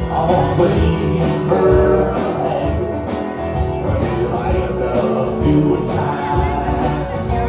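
Live country band playing an instrumental passage, with guitar to the fore over a steady beat.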